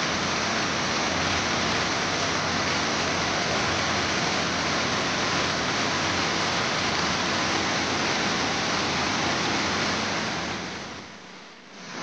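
Waterfall's rushing water: a steady, loud hiss of falling water that fades briefly near the end and comes back.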